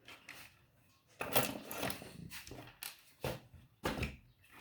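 Irregular small clicks, taps and rustling of hands handling small electronic parts and a circuit board.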